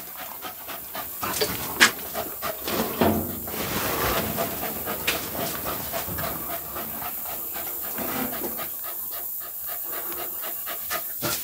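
A small dog panting close by, over scattered rustling and light knocks of debris being stepped on and moved.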